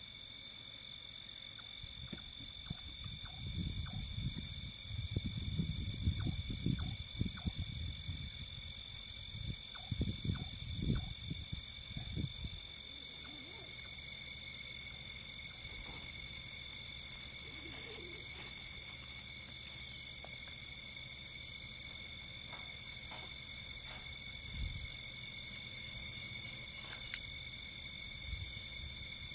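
Steady night chorus of crickets and frogs: several unbroken high-pitched tones. Low thumps come through during the first dozen seconds.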